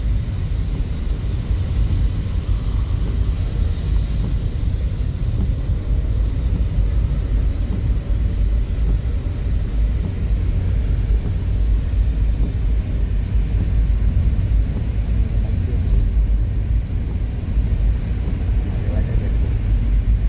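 A car driving, heard from inside the cabin: a steady low rumble of engine and road noise, with a fainter hiss over it.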